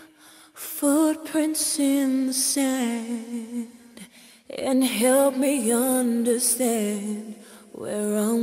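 Background music: a solo voice singing a slow melody, holding long wavering notes with short pauses between phrases.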